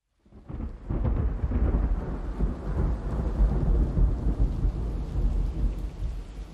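Low, rumbling noise with a hiss above it, fading in within the first second and easing off near the end.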